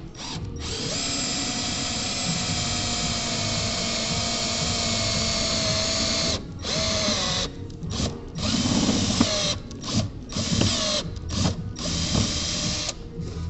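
Electric drill boring a hole in a carburetor body for a vacuum fitting. It runs steadily for about five seconds, then in short stop-start bursts.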